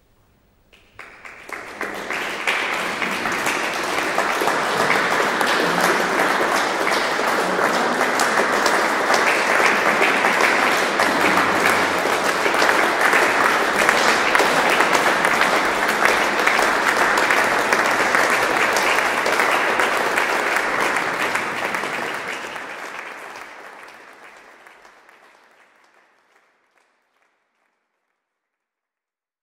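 Audience applauding, starting about a second in, holding steady, then dying away near the end.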